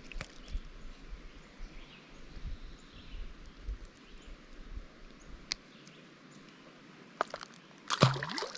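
Outdoor riverside ambience with faint, short bird chirps, a low rumble, and many scattered small clicks and knocks of handling close to the microphone; a louder, briefer burst of sound comes about eight seconds in.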